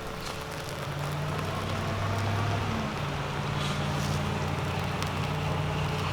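Small fire of fat wood and sticks burning, with faint sparse crackles over a steady low hum.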